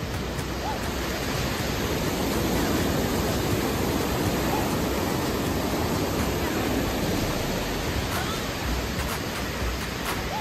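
River water rushing and churning white over rapids: a steady, even rush that swells a little in the middle.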